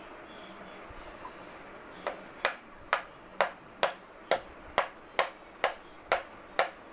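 A pencil rapping on a hardboard clipboard: sharp taps in a steady rhythm of about two a second, starting about two seconds in.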